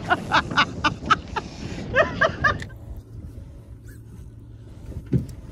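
Low, uneven rumble of wind across the microphone on an open boat, with short bits of indistinct talk and small knocks in the first half.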